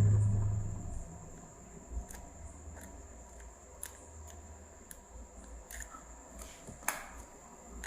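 Faint scattered clicks and ticks of small tools and a resistor being handled while it is soldered onto an SMPS circuit board. A steady faint high-pitched whine runs underneath. A low hum fades out during the first second.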